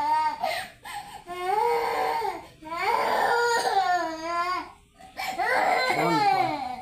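Infant crying in about four long, high-pitched cries with short breaks for breath between them, the middle cry wavering in pitch.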